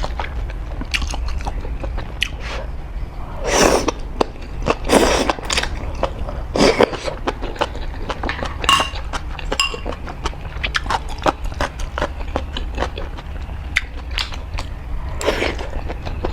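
Close-miked eating of spicy noodles: chewing, with many short wet mouth clicks and smacks and a few longer, louder slurps. A steady low hum runs underneath.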